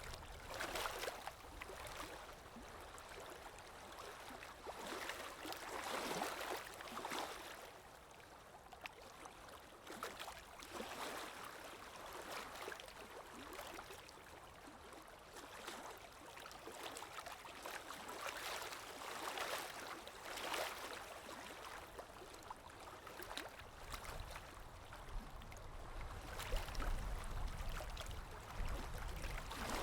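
Ambient recording of water lapping in gentle, irregular washes, with wind; a low wind rumble swells near the end.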